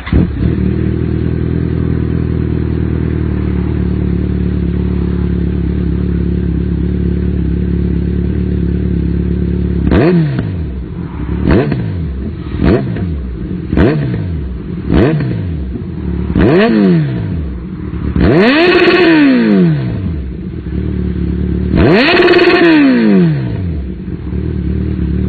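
Kawasaki Z900 inline-four with an aftermarket exhaust starting up and idling steadily, then six quick throttle blips, followed by two longer, louder revs near the end.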